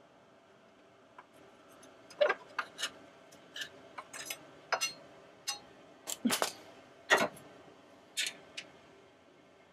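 Hand tools clicking and clinking on metal: an irregular run of short, sharp ticks and knocks, starting about two seconds in and stopping near the end, as a wrench and socket work the bolts holding a Sprinter van's turbocharger.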